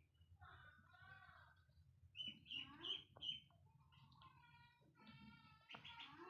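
Kittens meowing during play: a string of short mews, the loudest a few quick high-pitched calls about two seconds in, followed by longer drawn-out mews.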